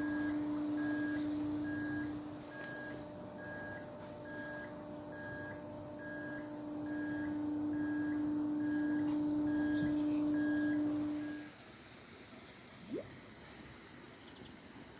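An electric boat motor hums steadily, with a short high beep repeating about twice a second. Both cut off suddenly about eleven seconds in, as the sailboat glides into the lock. Faint high chirps sound over the top.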